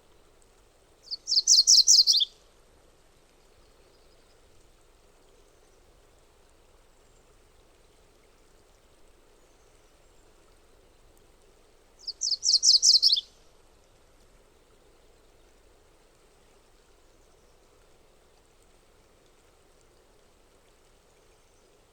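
MacGillivray's warbler singing twice, about eleven seconds apart. Each song is a quick run of repeated high notes, just over a second long, growing louder and dropping lower in pitch at the end. A faint steady hiss runs underneath.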